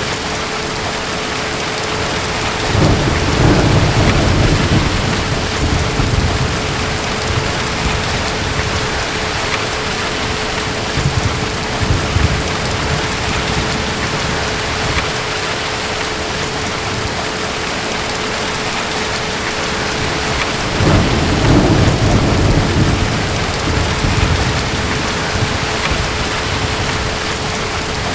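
Steady rain falling in a thunderstorm, with two rolls of distant thunder: one about three seconds in and another about twenty-one seconds in, each rumbling for a few seconds. A faint steady hum sits underneath.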